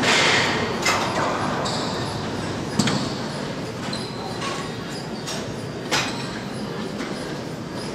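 Sharp smacks of a racquetball against racquet and court walls, three of them about one, three and six seconds in, echoing in the enclosed hard-walled court over a steady background hiss.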